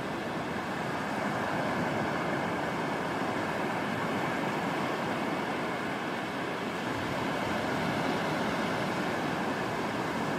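Small waves breaking and washing up a flat sandy beach: a steady rushing of surf that swells a little twice.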